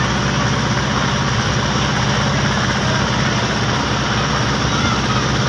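A river boat's engine running steadily while under way, an even low hum with no change in speed.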